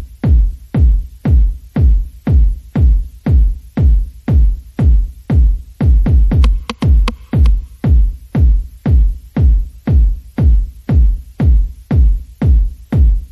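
Background electronic dance music with a heavy, steady kick drum, about two beats a second.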